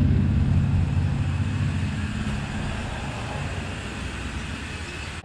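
Shop car lift lowering a car, a steady low mechanical hum that slowly fades.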